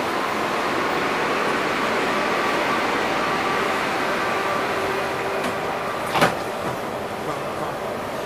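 Steady hum inside a new Metrowagonmash 81-775 metro car standing at a platform, then about six seconds in the car's sliding doors shut with one sharp thud.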